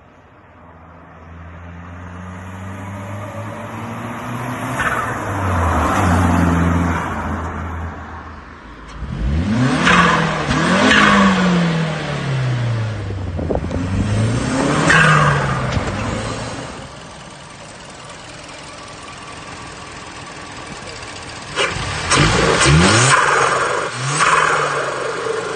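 Mazdaspeed 3's turbocharged 2.3-litre four-cylinder revved several times, its pitch climbing and falling, with bursts of turbo flutter as the throttle closes.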